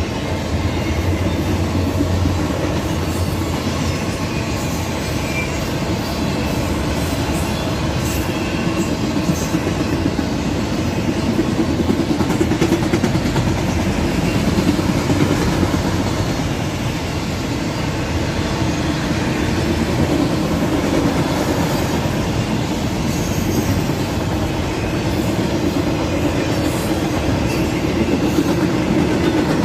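Autorack freight train rolling past: a steady noise of steel wheels running on the rails, with scattered clicks.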